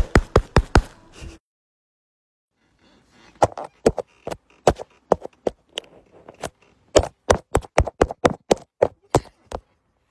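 Repeated hand slaps or smacks at close range, about four a second, stopping about a second and a half in. After a pause they start again: scattered sharp smacks at first, then a fast run of them near the end.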